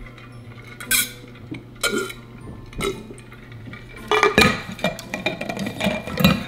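Insulated water bottle being handled while drunk from: a few sharp clicks and knocks of the cap and bottle, then a busy clatter of knocks and clinks over the last couple of seconds.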